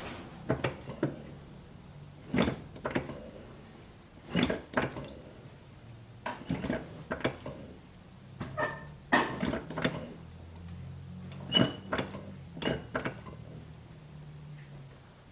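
Irregular clunks and knocks, with a few short squeaks, as the brake pedal of a Subaru Forester XT is pushed hard several times to pressurise a newly fitted STI master cylinder and check its lines for leaks. A faint steady low hum runs underneath.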